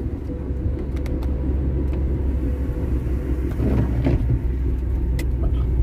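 Car cabin noise while driving: steady low engine and road rumble, with a faint steady hum above it.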